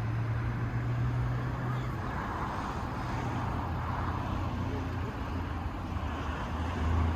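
Steady motor-vehicle noise: a constant low engine hum with road or traffic noise over it.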